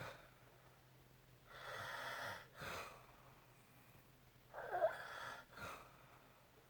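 A man snoring mildly in his sleep: two breaths, each a rough snore lasting under a second, followed by a short puff of air. The second snore, about halfway through, is louder and has a buzzing pitch.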